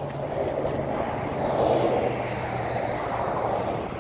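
A vehicle passing, its rushing noise swelling to a peak about halfway through and easing off, with a low hum that drops slightly in pitch.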